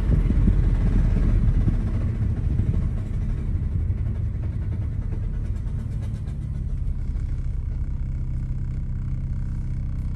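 Cabin noise of a 1998–2005 Lexus GS300 slowing down: a low road rumble that eases after about two seconds into a steady low hum. This is the unidentified noise the owner is chasing, which he suspects may be worn front wheel bearings.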